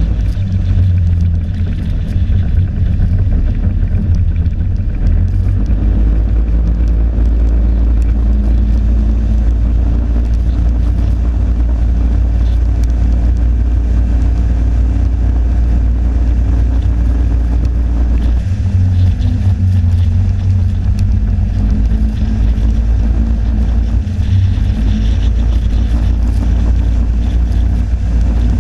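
Snowmobile engine running steadily at trail speed, a loud continuous drone; its note changes about two-thirds of the way through and again briefly a little later.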